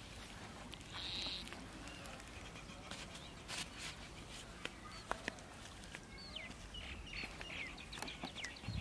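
Faint rural outdoor ambience with small birds chirping: a short high call about a second in and a run of quick chirps near the end, with a few light scattered clicks.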